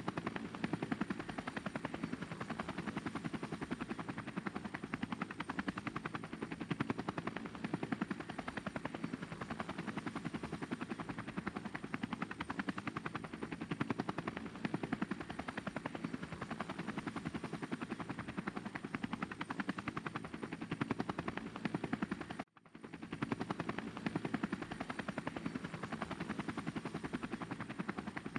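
Multirotor drone's propellers and motors running steadily, heard through the camera on the drone itself, with a fast flutter and a faint high whine. It drops out for a moment about 22 seconds in and comes back.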